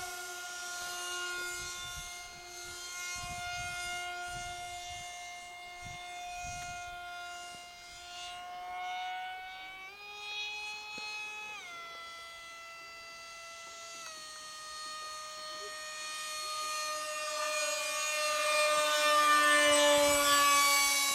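Model MiG jet flying overhead, its motor a steady high whine. The whine steps up in pitch about ten seconds in, drops back under two seconds later, then grows louder and glides down in pitch near the end as the jet passes close by.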